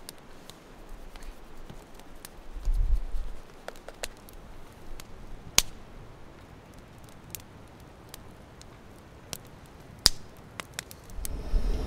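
Campfire crackling: sparse, irregular sharp pops and clicks over a low background. A brief low rumble comes about three seconds in, and a louder low rumble sets in near the end.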